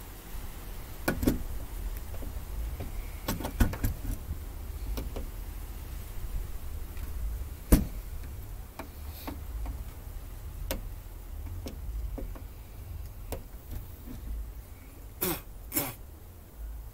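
Scattered metal clicks and knocks from hands fitting a metal electrical box onto its conduit fittings, the sharpest about halfway through and two more close together near the end, over a steady low rumble.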